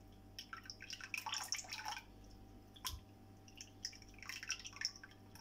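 A ladle stirring thick dosa batter in a steel vessel: wet splashing and dripping as batter is lifted and poured back in, in two bouts, with a single sharp knock in between.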